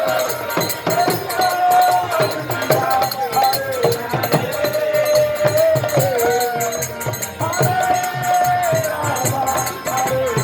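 Kirtan music: voices singing a sustained, gliding chant melody over steady jingling hand percussion and a regular drum beat.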